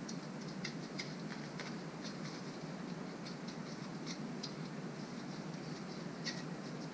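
Faint, irregular light clicks and ticks, like small metal parts or tools being handled, over a steady low hum of background noise.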